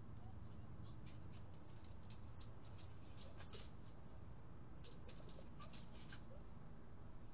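Small birds at a feeder giving short, high chirps and chips in quick clusters, over a low steady rumble.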